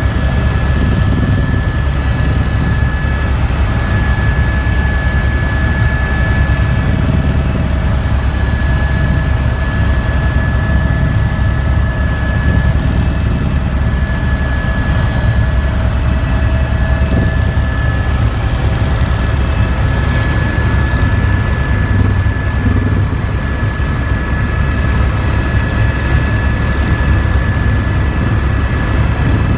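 Helicopter in flight: steady, loud engine and rotor noise, heavy at the low end, with a steady high whine over it.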